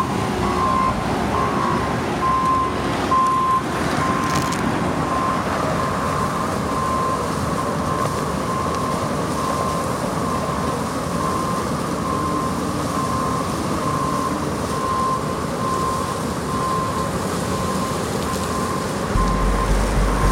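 Construction vehicle's backup alarm beeping steadily about once a second over the running noise of heavy diesel machinery. A deep, loud rumble starts suddenly near the end.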